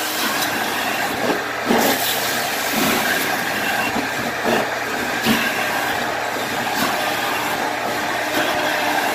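Carpet-cleaning machine running steadily on stair carpet, a constant motor drone and hiss with a few brief louder surges as the tool is worked across the steps, the loudest about two and five seconds in.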